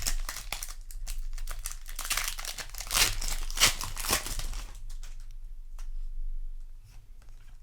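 Magic: The Gathering booster pack wrapper crinkling and tearing open, loudest in the middle, then dying down to softer handling.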